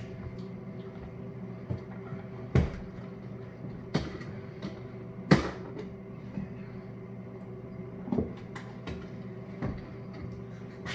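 Scattered knocks and clunks, about six, the loudest a little over five seconds in, over a steady low hum.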